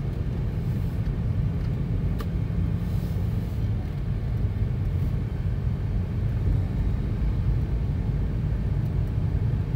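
Steady low rumble of a Daihatsu Ayla's engine and tyres heard from inside the cabin while driving.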